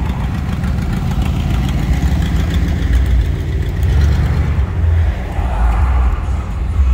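Car engines running in slow traffic, a steady low rumble heard from inside a car with its window open.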